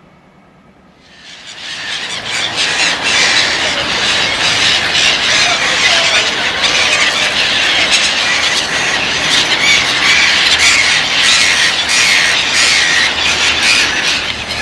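Freight train passing at speed: a loud rush of steel wheels on rail builds up about a second in and then holds, with rapid clatter as the wheels run over rail joints.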